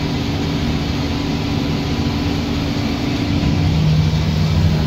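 Tractor engine running steadily, heard from inside the cab, while it pulls a round baler through bean straw. About three and a half seconds in, the hum changes to a lower, slightly louder tone.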